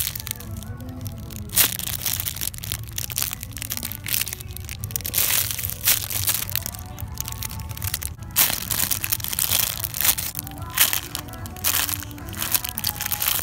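Clear plastic bags crinkling and crackling in irregular bursts as packaged foam squishy toys are handled and squeezed, with music playing underneath.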